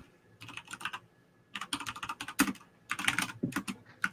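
Computer keyboard typing in three quick bursts of keystrokes with short pauses between them.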